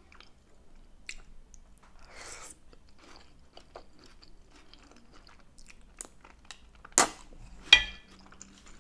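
Close-miked chewing and biting of spaghetti bolognese, with soft wet mouth sounds and small crunches. About seven seconds in come two sharp, loud knocks, the second ringing briefly.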